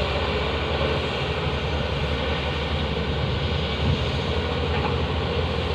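Steady drone of heavy diesel engines: Tata Hitachi hydraulic excavators working while loading coal into a Volvo 460 mining tipper, which is running while it stands.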